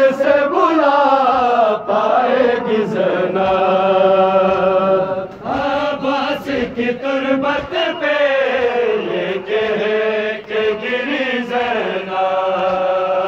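Male voices chanting a Balti noha, a Shia mourning lament, into a handheld microphone. The notes are long, drawn out and wavering, sliding up and down between phrases.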